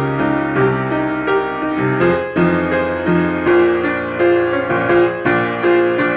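Piano playing the accompaniment of a Japanese graduation choral song: a steady flowing figure of struck notes over held bass notes.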